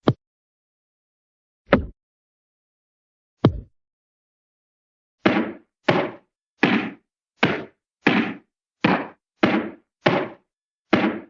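Hanna-Barbera cartoon impact sound effects: three short, sharp hits spaced a little under two seconds apart, then, about five seconds in, a steady run of fuller, rougher hits at well over one a second.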